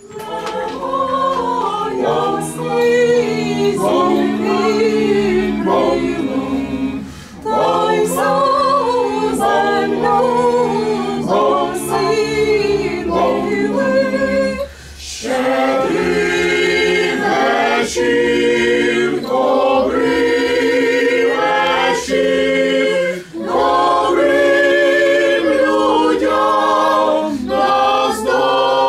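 Group of Ukrainian carollers, men, women and children, singing a koliadka (Christmas carol) a cappella in unison, in long phrases with short breaks between them.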